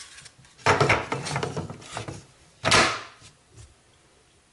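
Handling of a plastic Craftsman V20 battery charger and 20-volt battery pack: rattling and scraping about a second in, then a sharp knock near three seconds in as the battery is slid onto the charger.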